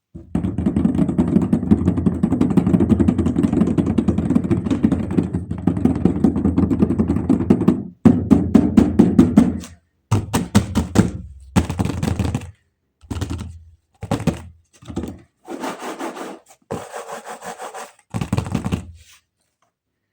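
Toy or packaging being handled and rubbed: dense rapid rattling and scraping for about eight seconds, then a string of short bursts about a second each.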